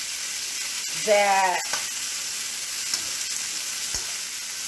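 Beef browning in olive oil in a frying pan, sizzling steadily, with a few faint ticks.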